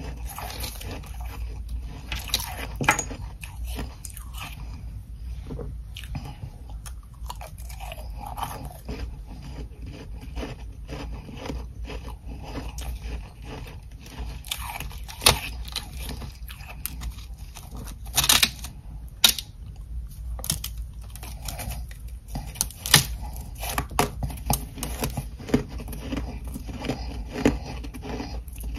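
Close-miked biting and chewing of ice chunks coated in soft humidifier frost: repeated sharp crunches at irregular intervals, with chewing and grinding between bites, over a steady low hum.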